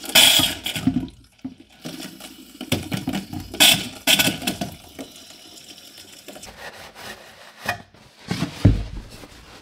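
Water spitting and gushing out of a newly spliced-in half-inch PEX cold-water line in uneven spurts as trapped air purges from the pipe. The loudest spurts come at the start, around four seconds in and near the end, with a lower hissing flow between.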